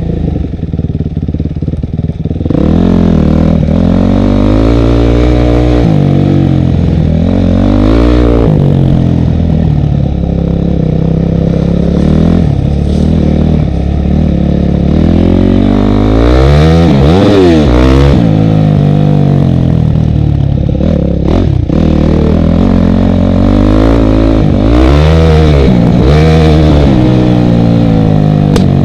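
Dirt bike engine heard close up from the bike as it is ridden, revving up and down over and over, its pitch rising and falling with the throttle. It runs quieter and uneven for the first couple of seconds, then stays loud, with one sharp high rev around the middle.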